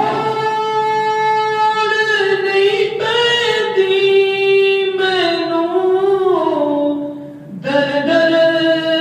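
A man singing a naat, an Urdu devotional song, solo into a handheld microphone, holding long notes with slow ornamented glides and pausing briefly for breath about seven seconds in.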